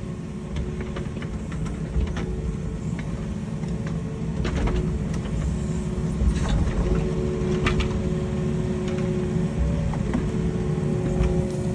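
Engine of heavy earthmoving machinery running steadily with a low rumble, with a few short knocks over it.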